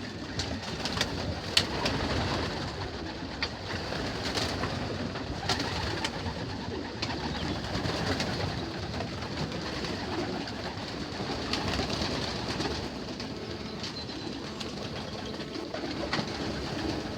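A loft full of young racing pigeons cooing and moving about together, with scattered sharp clicks through the din.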